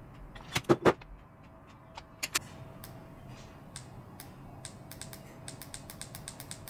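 Plastic temperature buttons on a digital heat-set insert iron clicked repeatedly, several presses a second, stepping the set temperature up toward 260 °C. A few louder sharp clicks come about half a second in.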